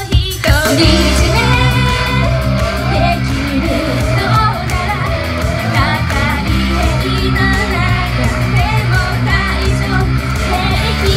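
Japanese idol pop song performed live: female vocals sung into microphones over an upbeat backing track with a steady beat.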